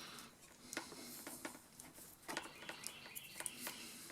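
Faint, irregular clicks and light rustling: spliced wires and their plastic wire nuts being handled and arranged.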